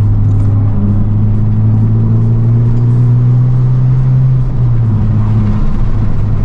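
Honda Civic Type R's turbocharged four-cylinder engine pulling under acceleration, heard from inside the cabin. The engine note climbs steadily, then drops at a gear change about four and a half seconds in and keeps pulling.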